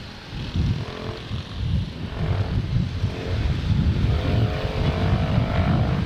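Motorcycle running through traffic with heavy wind buffeting on the microphone; the engine's pitch rises a little in the second half as it picks up speed.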